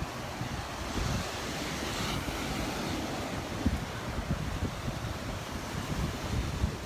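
Surf washing ashore, with a swell of rushing water about two seconds in, and wind buffeting the microphone.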